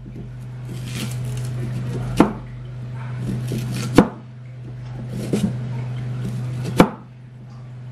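Kitchen knife chopping purple sweet potato on a wooden cutting board: four sharp knocks of the blade hitting the board about a second and a half apart, with softer cutting sounds between, over a steady low hum.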